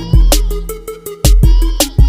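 Background music: a beat with deep, sustained bass notes and sharp, regular drum hits.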